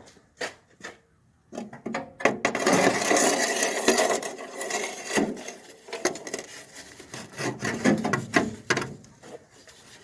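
A used radiator built for a 1967 Dodge Dart is pushed and wiggled into a 1966 Dart's radiator support. Metal scrapes, rubs and knocks: a few light clicks, then a long dense scrape from about two seconds in, then shorter scrapes and knocks. The radiator is binding because it does not fit the chassis.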